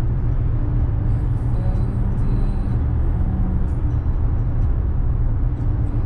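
Steady low rumble of road, tyre and engine noise inside a car's cabin at highway speed.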